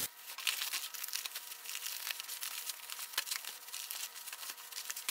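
Thin plastic grocery bags crinkling and rustling as they are untied and pulled off packages: a dense, irregular run of small crackles.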